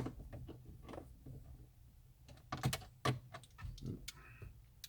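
Scattered sharp clicks and clinks of metal hand tools and sockets being handled, with a few louder knocks about two and a half to three seconds in.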